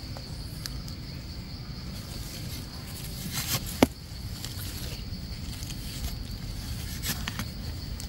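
Rustling and scraping of soil and leaf litter as termite mushrooms are dug and pried out of the ground, with one sharp click about four seconds in. A steady high insect drone runs underneath.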